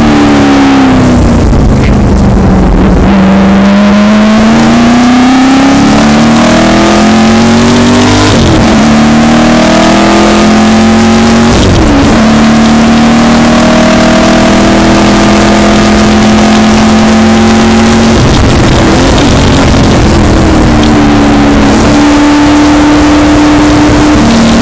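1966 Ford GT40's V8 engine at racing speed, heard loud from inside the cockpit. Its note climbs under acceleration and drops sharply several times at gear changes and lifts for corners.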